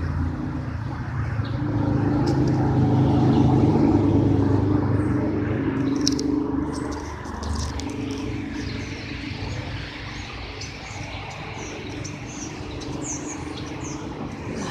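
Motor vehicle traffic passing, a low engine drone that builds to its loudest a few seconds in and then fades. Birds chirp in the latter part.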